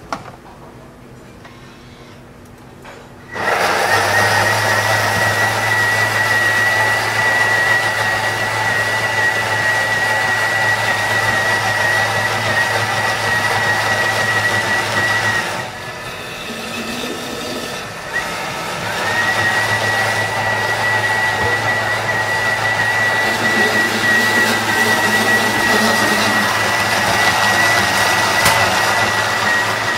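Bimby (Thermomix) cooker-blender puréeing blanched broccoli into a cream. A click as the lid is locked on, then about three seconds in the motor starts with a steady high whine over a low hum. It eases off for a few seconds about halfway through, then runs up to speed again.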